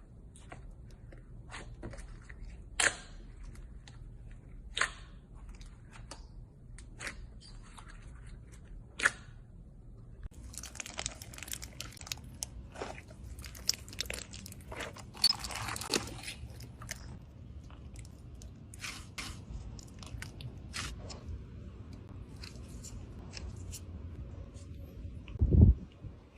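Slime being squeezed and poked by hand, giving scattered sharp pops and crackles, with a denser run of crackling about halfway through. A single low thump comes near the end.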